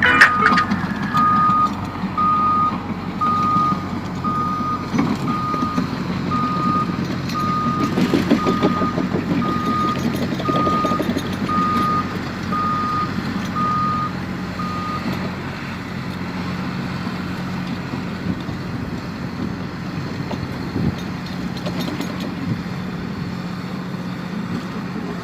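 A truck's reversing alarm beeping about once a second over its running engine. The beeping stops about fifteen seconds in, and the engine keeps running.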